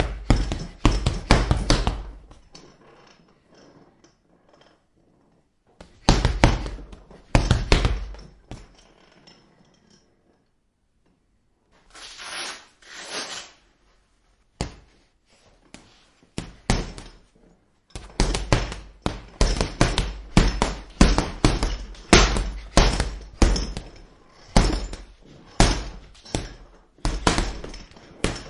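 Boxing gloves punching a heavy bag in combinations, each hit a sharp thud. There is a quick flurry at the start, a few heavy pairs of hits after a pause, then a long run of steady punches from about two-thirds of the way in.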